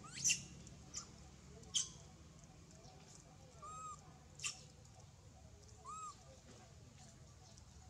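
Macaques calling: four sharp, shrill squeaks, the first three in the first two seconds and one more past the middle, and two short arched coos.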